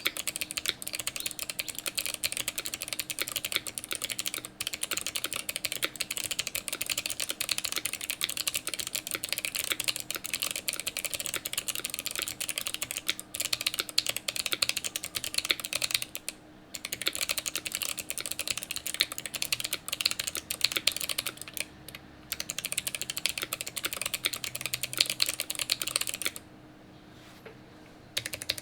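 Fast typing on a custom KBD6X mechanical keyboard with an acrylic plate, lubed Kailh Box Jade clicky switches and GMK keycaps: a dense run of sharp clicks. There are two brief breaks and a pause of about two seconds near the end.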